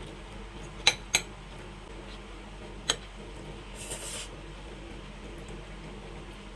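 Cutlery clinking against a plate: two quick clinks about a second in and another near three seconds, then a brief scrape across the plate.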